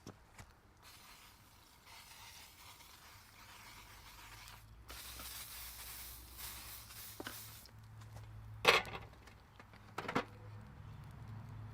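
Cooking spray hissing onto the hot cast iron waffle maker, louder from about halfway through. Then two sharp knocks, the loudest sounds, over a low steady rumble from the stove burner.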